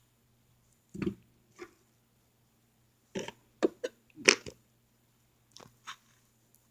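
A table knife scraping and knocking as it gets butter and spreads it on toast: a handful of short, separate scrapes, the loudest about four seconds in.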